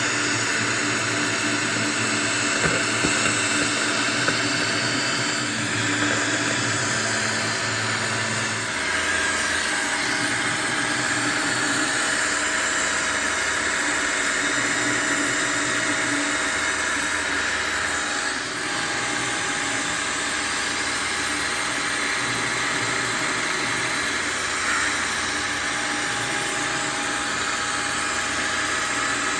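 Optimum CNC milling machine running steadily, its spindle spinning and the cutter milling a film-faced plywood workpiece, with a constant hiss and whine. The low hum shifts about nine seconds in as the cut changes.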